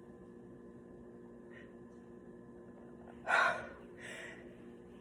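A person's sharp gasping inhale about three seconds in, followed by a shorter, softer breath: the build-up breaths of a coming sneeze. A faint sniff comes earlier, over low room hum.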